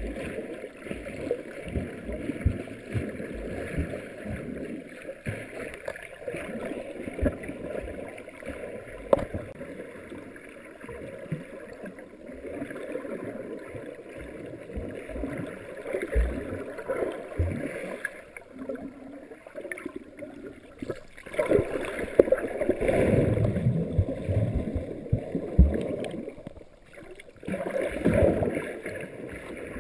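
Muffled water sloshing and gurgling around a GoPro's sealed dive housing held underwater, with irregular knocks. It gets louder in two stretches in the last third.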